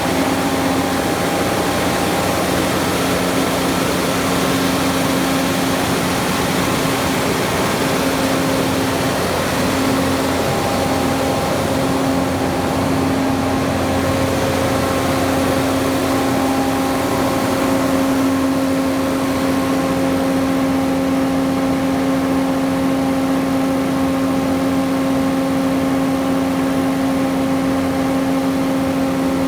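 Volvo diesel engine of a 204 kW generator set running steadily at constant speed, with a strong steady hum.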